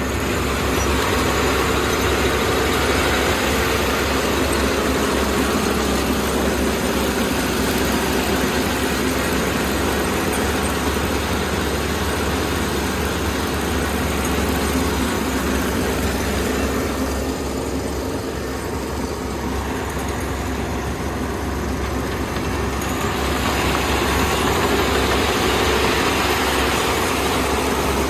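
Kubota combine harvester running steadily under load while cutting rice, its diesel engine humming under a broad mechanical hiss from the header and threshing machinery. The upper hiss eases for several seconds about two-thirds of the way through, then comes back.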